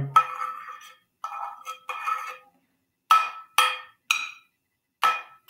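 Metal saucepan tapped with a pencil as a makeshift drum: about seven separate strikes, each ringing briefly with a clear metallic pitch, the later ones in evenly spaced groups of three.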